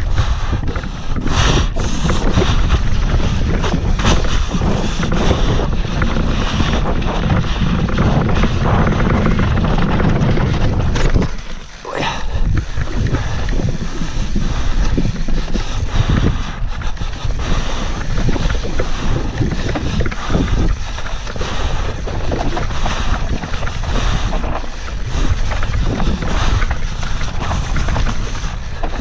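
Wind rushing over an action camera's microphone and knobby mountain-bike tyres running fast down a dirt forest trail, with steady rattling and knocks from the bike over bumps. The noise drops out briefly a little before the middle.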